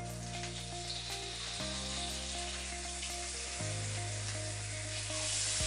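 Marinated chicken thighs sizzling in hot oil as they are laid into a cast iron skillet; the sizzle grows louder near the end.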